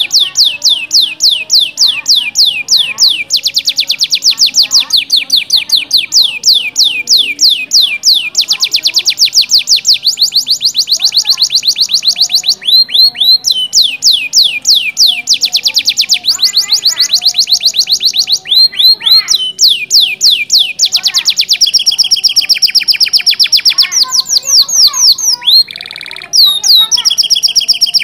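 Domestic canary singing a long, unbroken song of rapid rolling trills, many notes a second, switching to a new trill pattern and speed every few seconds.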